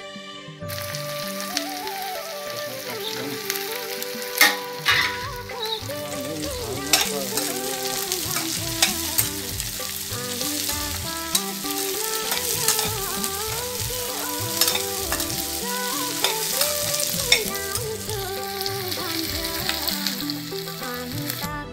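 Sliced onions and green capsicum sizzling as they stir-fry in hot oil in a wok-style pan, starting about half a second in, with a metal spatula scraping and clicking against the pan every few seconds.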